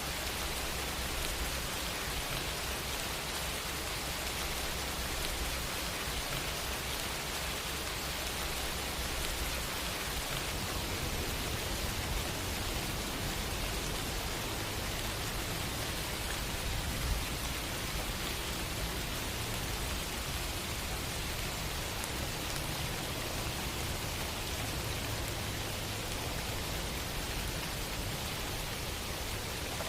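Steady rain falling: an even hiss of drops with a low rumble underneath.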